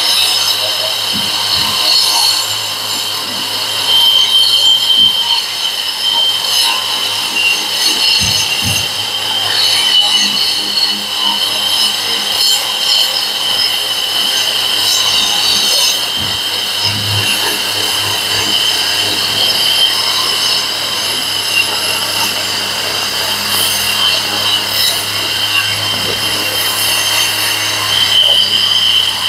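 Boda brushless wall chaser running under load and cutting a groove into a wall: a steady high motor whine over the grinding of its blades in the masonry.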